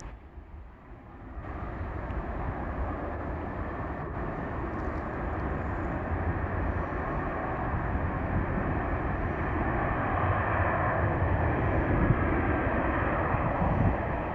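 Jet airliner on its landing approach: a steady engine rumble and rush that comes in about a second and a half in and grows louder as the aircraft nears.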